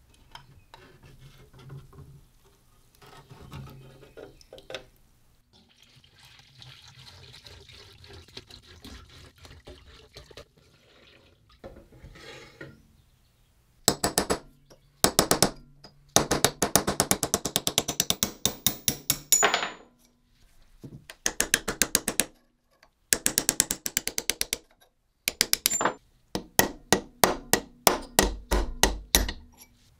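From about halfway in, runs of rapid light metal-on-metal taps, several a second, in bursts of one to a few seconds: a hammer striking a punch held against the cast-iron vise's steel jaw plate to drive it and its pins loose. Before that there is only faint noise.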